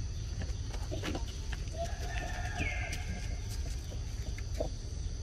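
Forest ambience: a steady high insect drone, with one short animal call about halfway through, a held lower note plus a higher falling note, and scattered light clicks.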